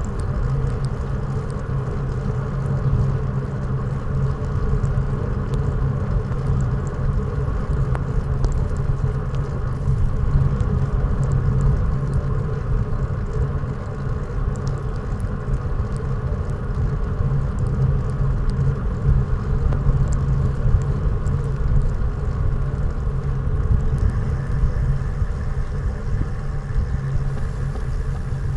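Motorcycle engine running at a steady cruise, with a constant rush of wind and road noise from riding.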